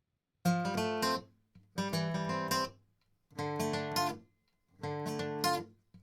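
Background music of an acoustic guitar, played in four short phrases about a second long with brief pauses between them.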